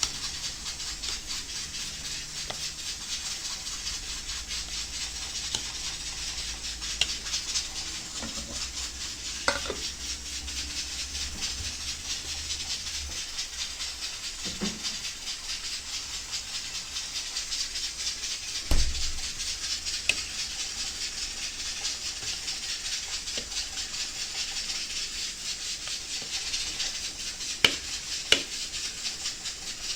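Kitchen sounds: a steady hiss with a few sharp clinks of a utensil on cookware, and one louder knock about two-thirds of the way through.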